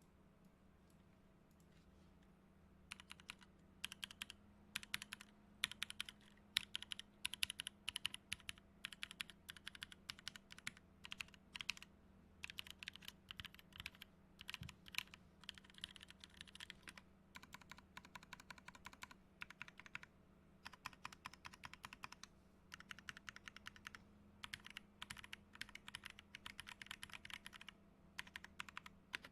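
Typing on a custom mechanical keyboard fitted with NovelKeys × Kailh Cream linear switches, lubed with Krytox 105 and 205g0 and with 70 g springs, on an FR4 plate. Quick runs of keystrokes start about three seconds in and go on with short pauses between bursts.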